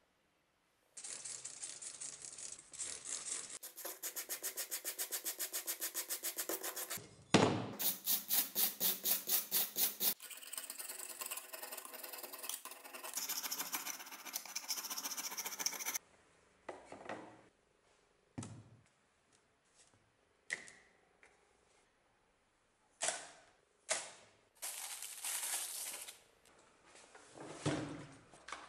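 Hand-tool work on a rusty steel axe head on a wooden bench: short runs of fast rhythmic strokes and scraping on the metal, the loudest being a run of strong strokes about five a second. In the second half come separate knocks and clunks as things are handled and set down on the bench.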